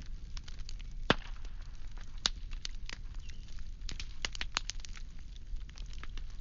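Burning firewood crackling, with irregular sharp pops and snaps, the loudest about a second in and another just after two seconds, over a faint steady low rumble.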